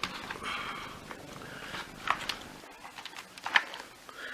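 Rustling and a few sharp plastic clicks and knocks from handling the dismantled vacuum cleaner floor head. The loudest click comes about three and a half seconds in.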